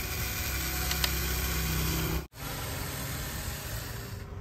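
Remote-control Huina 593 model excavator running: a steady mechanical whirr with hiss, its electric motors and gears driving it. The sound drops out abruptly about halfway through, then carries on.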